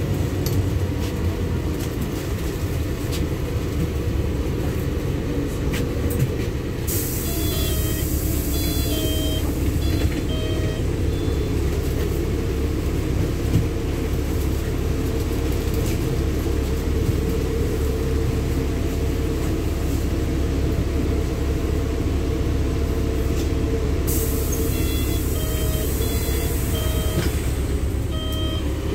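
Cabin noise of a LiAZ-6213 articulated city bus driving along a wet road: steady engine and road rumble. A high hiss comes in for a long stretch in the middle, and a few faint short beeps sound twice.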